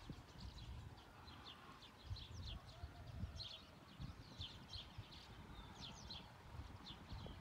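Small birds singing in a rapid string of short, high chirps, faint, over an uneven low rumble of wind on the microphone.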